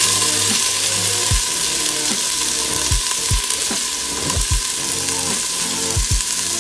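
Diced shallots sizzling in hot oil in a stainless steel pot while being stirred with a rubber spatula, a steady frying hiss with several soft low thumps from the spatula and pot.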